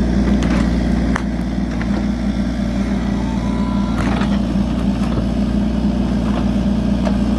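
Mini excavator engine running steadily, with a couple of short knocks, one about a second in and another about four seconds in.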